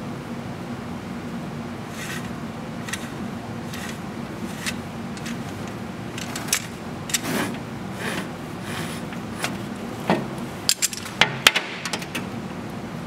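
Light metal clicks and rattles from a steel ratchet tie-down buckle being handled as the webbing is pulled off its spool, with a quick run of sharper clicks near the end as the ratchet handle is opened and the buckle is set down, over a steady low hum.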